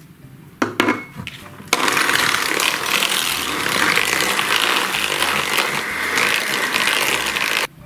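Bosch electric hand mixer beating eggs into creamed butter and sugar with its wire beaters. A couple of clicks come first, then the mixer runs steadily from about two seconds in and cuts off suddenly near the end.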